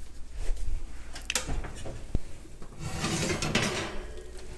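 Oven door opened and a baking dish of salmon pulled out of the oven: a few knocks and clicks, then a scraping rub about three seconds in.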